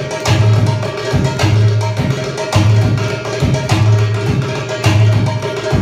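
Egyptian goblet drum (darbuka, Egyptian tabla) playing a dance rhythm: deep doum strokes about once a second with sharp tek clicks between them, over a steady held keyboard note.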